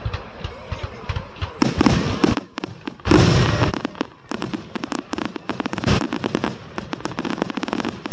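Aerial fireworks going off in a dense run of rapid crackling pops, with two loud booms about two and three seconds in.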